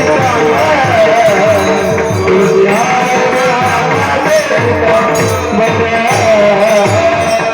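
Devotional Marathi bhajan music: a wavering melody line over a steady drum beat and jingling hand percussion.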